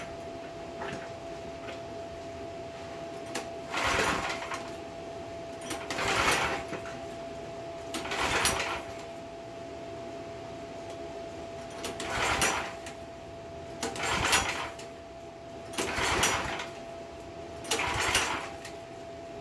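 Pressure washer's small gas engine being pull-started over and over: seven hard yanks on the recoil starter, each a brief cranking whir about two seconds apart, and the engine never catches because its fuel valve was shut off.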